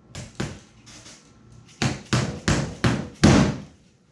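A hammer knocking spikes into a glued-in foam block to hold it in place. A few knocks, then about five in quicker succession, the last the loudest.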